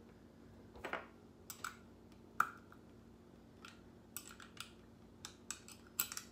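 Light metal clicks and taps from a nut and washer being threaded by hand onto the bolt of a diaphragm air pump's new diaphragm assembly. The clicks are scattered and irregular, the sharpest about two and a half seconds in, with a small cluster near the end.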